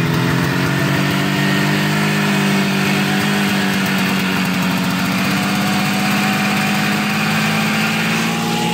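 Ockelbo snowmobile's two-cylinder two-stroke engine running steadily at idle on its first run after five years standing unused, its speed creeping up slightly over the first few seconds.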